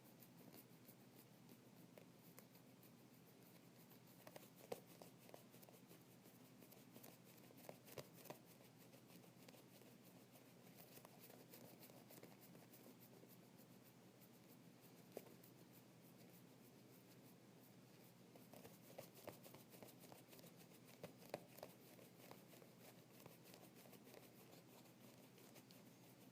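Foam stress ball being squeezed in the hand over and over: faint crinkling and squishing that comes in scattered clusters of small crackles over a steady hiss.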